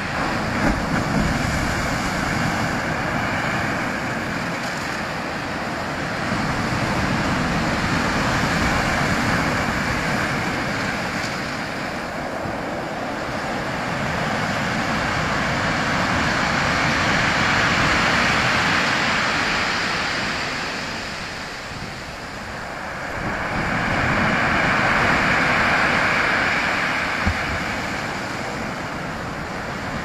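Sea surf breaking and washing up a shingle beach, a continuous rushing that swells and eases in long surges several seconds apart.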